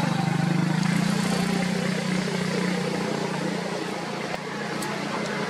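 A motor vehicle's engine running with a steady low hum that slowly fades away.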